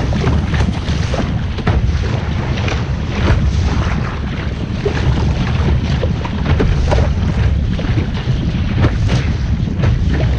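Wind buffeting the microphone aboard a sailing boat under way, a heavy steady rumble, with water rushing and slapping against the hull in frequent short splashes.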